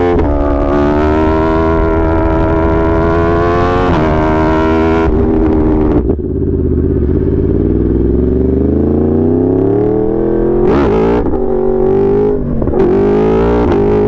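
Yamaha R1 sport bike's inline-four engine running under way. About six seconds in the note drops sharply as the throttle closes, then the pitch rises steadily as it pulls again, with two brief breaks in the note later on.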